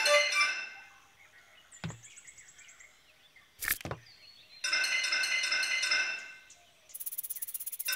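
Cartoon soundtrack: a bell-like music cue stops just after the start. About two seconds in there is a short swish with a ringing edge, and about three and a half seconds in a single sharp smack. The bell-like music comes back briefly around five seconds, and a rapid high ticking rattle follows near the end.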